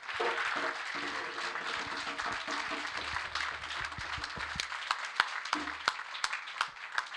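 Audience applauding, a dense patter of many hands that thins out to scattered separate claps over the last few seconds.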